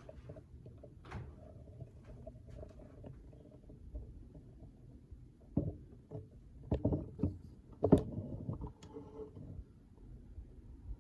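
Emerson Cornerstone CF-1 ceiling fan, fitted with two blades, running on high with a steady low hum. About halfway through there is a cluster of irregular knocks and thumps, the loudest a little later.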